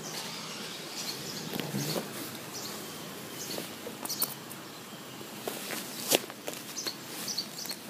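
Outdoor ambience with small birds chirping faintly and a few sharp handling clicks and rustles, the loudest click about six seconds in.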